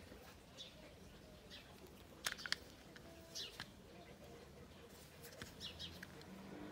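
Plastic motorcycle handlebar switch housings being handled, with two sharp clicks close together a little over two seconds in. Faint bird chirps come through several times in the background.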